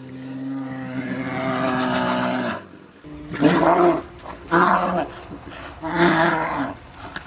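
Brown bear roaring: one long, deep roar that swells and stops about two and a half seconds in, then four shorter roars at about even spacing.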